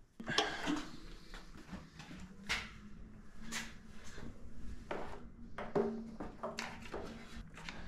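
Scattered light clicks and knocks of motorcycle parts being handled and fitted by hand during reassembly, over a faint steady low hum.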